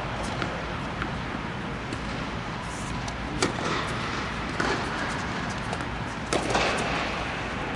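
Tennis balls struck by racquets during a doubles rally: a few sharp pops spaced a second or two apart, over a steady rushing background noise.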